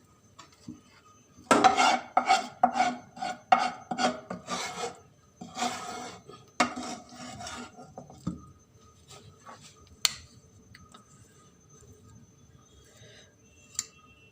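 A spoon scraping sticky gud-sonth mixture of jaggery, dry ginger and nuts around a pan while it is served out warm. About two or three scraping strokes a second start about a second and a half in and stop at about eight seconds, followed by a few faint clicks.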